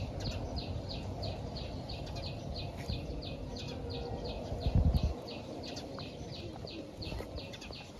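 A small animal chirping steadily in the background, short high chirps at about three a second, over low rumbling that swells briefly about five seconds in.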